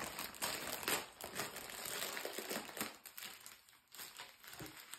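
Packaging crinkling and rustling as it is handled and pulled open, dense for about three seconds and then sparser and quieter.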